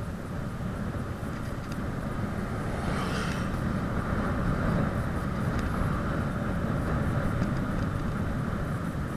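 Wind buffeting the microphone and tyres rumbling on asphalt during a fast bicycle descent, a steady rush with a brief hiss about three seconds in.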